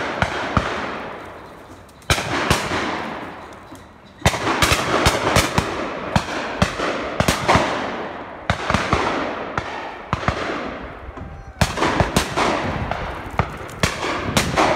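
Shotguns firing repeatedly, each sharp report trailing off in a long echo: single shots at the start and about two seconds in, then a rapid run of shots from about four seconds in, and another cluster near the end.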